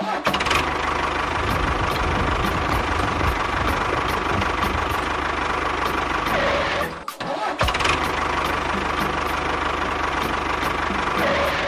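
Mini tractor engine running steadily, stopping for a moment about seven seconds in and then running again.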